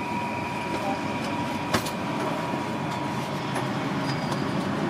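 Steady street and traffic background noise with a faint steady whine that fades out about two seconds in, and one sharp click a little under two seconds in.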